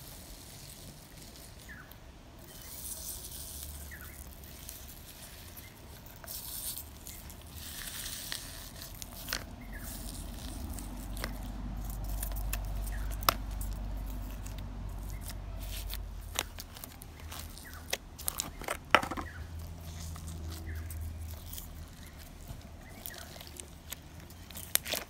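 Hands pressing, poking and stretching slime packed with polystyrene foam beads, giving scattered small clicks and crackles as the beads and slime are worked.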